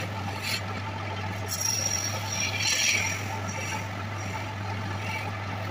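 Electric wood lathe running with a steady low hum while a hand-held turning tool cuts the spinning wooden goblet stem in short scraping passes, the loudest about three seconds in.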